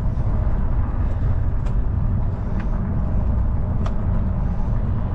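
Wind buffeting the microphone of a camera riding along on a bicycle: a steady low rumble, with a few faint ticks.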